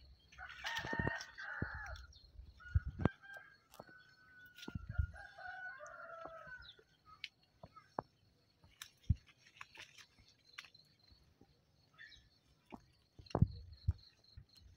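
A rooster crowing: a short call about a second in, then one long drawn-out crow lasting several seconds. Scattered sharp snaps and knocks of branches and leaves as the monkey climbs in the tree.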